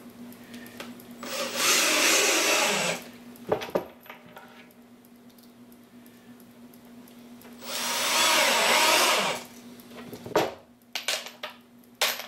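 Cordless drill driving two wood screws through a plywood cover into a 3/4-inch pine cleat, each run lasting a little under two seconds and winding down in pitch as the screw seats. Sharp clicks and knocks of the drill and screws follow each run.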